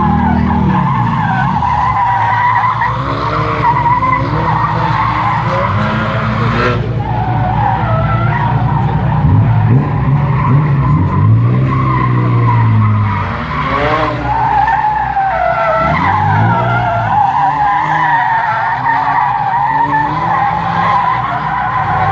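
BMW drift car sliding through a drift, its tyres squealing continuously with a wavering pitch. Under the squeal the engine revs rise and fall repeatedly.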